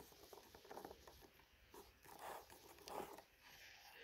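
Faint scuffs and rustles of a leather holster being handled with a revolver seated in it, a few soft short noises.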